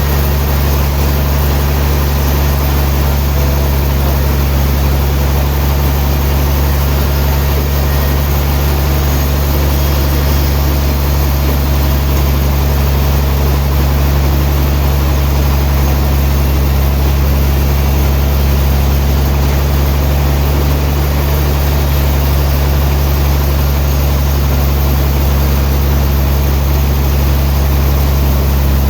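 Sawmill machinery running steadily with a deep, unchanging engine-like hum.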